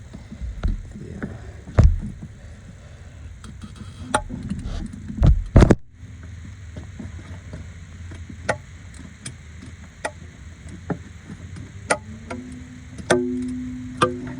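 Metal hand tools clinking and knocking against engine parts while AC compressor bolts are loosened: heavier thumps about two and five seconds in, then a run of sharp metallic ticks, with a brief low hum near the end.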